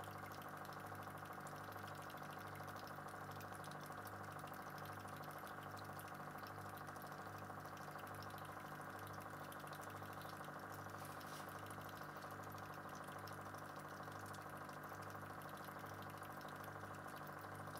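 Steady low hum of a small electric motor, swelling and fading about once a second.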